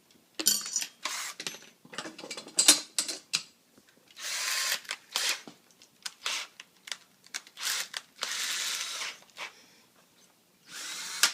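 Power drill driving screws into particle board, run in short trigger bursts with pauses between them, a few of the runs lasting about a second.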